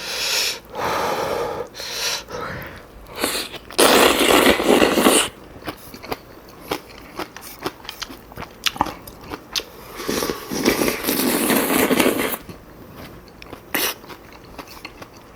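Close-miked eating of Chapagetti black bean noodles: two long, loud slurps of noodles about four and ten seconds in, with wet chewing and small mouth clicks between them.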